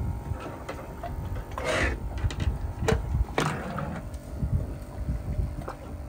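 A few short clicks and scrapes over a steady low rumble, as a perch is held and unhooked on a small boat on open water.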